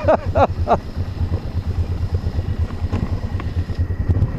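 ATV engine running at low revs, a steady low pulsing rumble.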